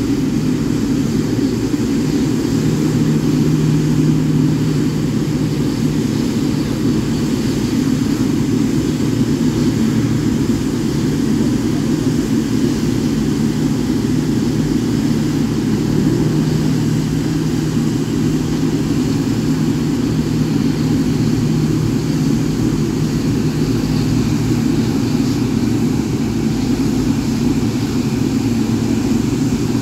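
Boeing 777-9's GE9X turbofan engines running steadily at low thrust as the airliner taxis: an even, unchanging drone with a fainter hiss above it.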